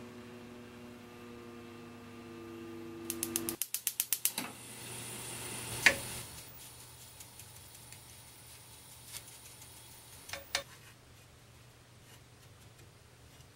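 Microwave oven humming steadily as it heats a bowl of cream, cutting off about three and a half seconds in, followed at once by a quick run of sharp mechanical clicks. Then one sharp knock, and a few faint taps and scrapes of a wooden spatula on sugar in a pan.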